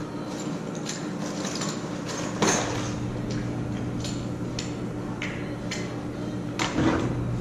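Hands handling small plastic parts and cable: scattered light clicks and ticks, with a louder knock about two and a half seconds in and another near the end, over a steady low hum.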